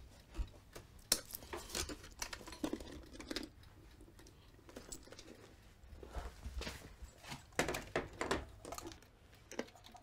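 Scattered light clicks and knocks of small objects being handled and set down, at uneven intervals.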